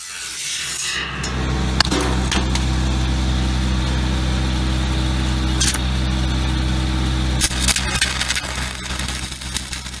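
An engine running steadily with a low hum. It rises in level over the first second, holds steady with a few sharp clicks, and drops away about seven and a half seconds in.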